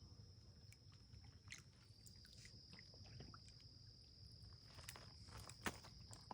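Quiet stream-side ambience: an insect's steady, high-pitched trill, with a few faint clicks and one sharper knock near the end.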